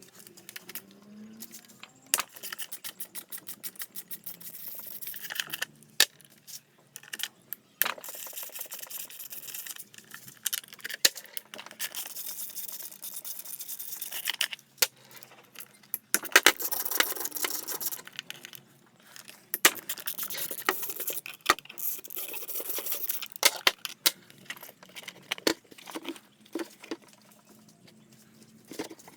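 Hand work on a Honda Cesta AF34 scooter engine: small metal tools and parts clicking, clinking and knocking, with runs of rapid even clicking and stretches of scraping or rustling. The engine is poor-starting and has lost compression.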